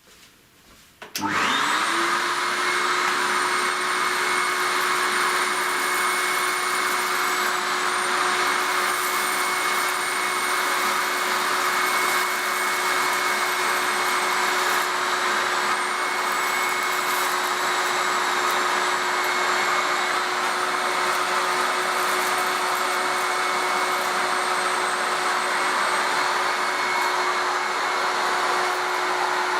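MIE Ecologico water-filter separator vacuum cleaner switched on about a second in, its motor spinning up with a rising tone and then running steadily with a high whine.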